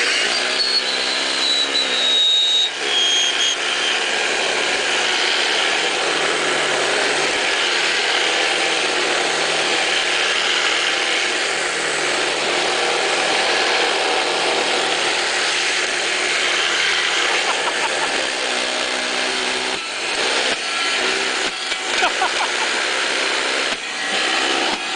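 Vacuum cleaner running steadily, with a thin high whine that drops slightly in pitch over the first few seconds. A scattering of knocks and rattles comes near the end.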